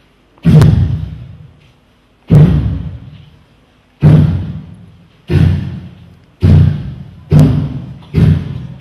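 Seven heavy thuds of a hand striking the body of a man lying on a tiled floor, coming closer together toward the end, each dying away over about a second.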